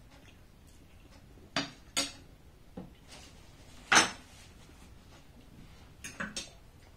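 Metal fork and spoon clinking against ceramic plates: a handful of short, sharp clinks spread through, the loudest about four seconds in and a quick pair near the end.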